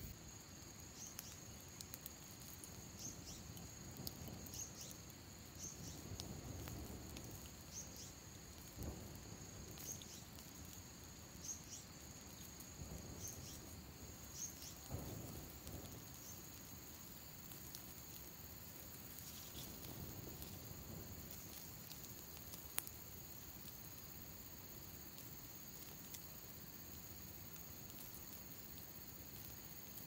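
Insects trilling steadily in the undergrowth, with a run of short repeated chirps in the first half. Faint crackles and pops come from a small stick campfire, one sharper pop a little past the middle.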